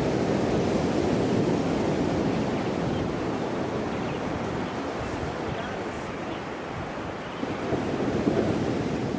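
Surf washing onto a sandy beach, mixed with wind rumbling on the microphone; the wash swells a little near the end.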